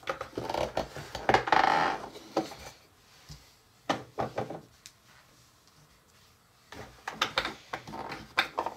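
Plastic clicks and clatter from a Play-Doh Burger Builder extruder being handled: the sliding shape strip and the red press lever knocking as they are moved and pushed. The clatter is loudest in the first two seconds, pauses for about two seconds in the middle, and picks up again with more clicks near the end.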